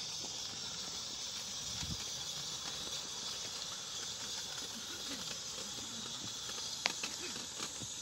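16mm-scale live steam locomotive running, giving a steady hiss of steam, with a few light clicks near the end.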